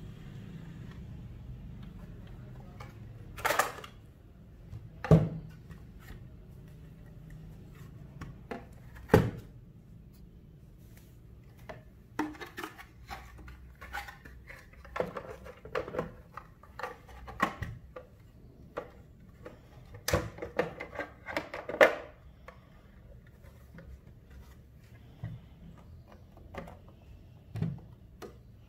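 Plastic and metal clicks and knocks from a Synology DS220j being handled and closed up, with hard drives mounted in its internal frame and the white plastic casing fitted over it. A handful of sharp knocks stand out among lighter clusters of clicking and rattling.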